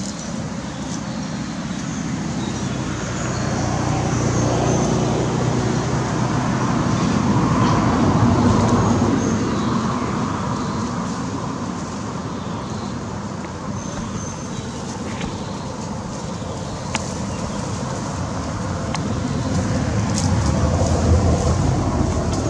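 Road traffic running steadily with engine drone, vehicles passing that swell louder several seconds in and again near the end.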